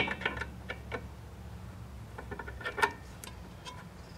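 Light metallic clicks and clinks of brake spring pliers and steel return springs against the drum brake shoes and backing plate as a spring is worked into place, with a cluster of sharper clinks a little under three seconds in. A low hum underneath stops about two and a half seconds in.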